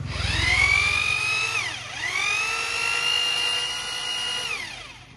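Bosch GBH 2-24 DSR rotary hammer, a 620 W corded drill, run unloaded twice. Its motor whine rises to speed, holds about a second and a half and winds down, then spins up again, holds about two and a half seconds and winds down near the end.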